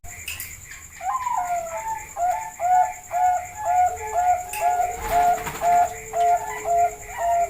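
Zebra dove (Bangkok-type perkutut) singing: an opening note about a second in, then a rapid series of short cooing notes at about two a second.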